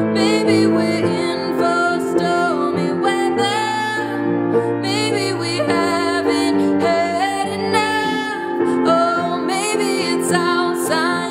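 Grand piano playing held chords while a woman sings a wavering melody line over them.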